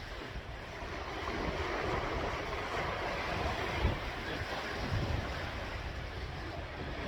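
Sea waves washing in, the rush of surf swelling about a second in, with a couple of low thumps of wind buffeting the microphone.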